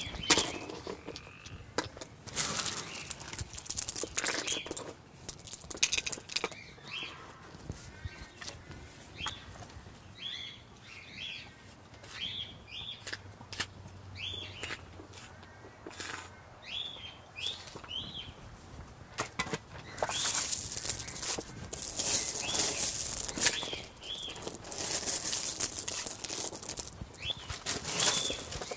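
Rocks and river pebbles clacking and scraping as they are set by hand around an underwater pond light fixture, in a run of separate knocks, with louder stretches of rattling gravel near the end.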